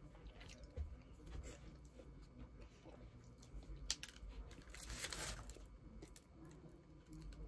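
Close-up eating sounds: food being bitten and chewed with small crunches, and a brief louder rustle or crunch about five seconds in.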